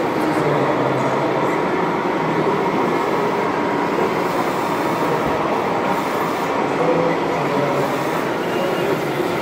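Hydraulic system of a 1:8-scale RC Caterpillar 349E excavator running steadily as the arm swings and the bucket dumps earth into a truck bed, under a constant dense background din.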